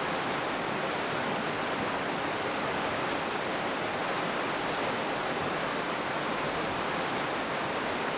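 Steady rush of a fast, shallow river running over rocks and riffles.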